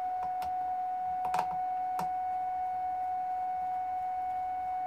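A steady high-pitched electronic whine with its fainter overtones, under a few light metallic clicks as a multimeter probe tip is pressed against the charge controller's terminal, the clearest one about a second and a half in.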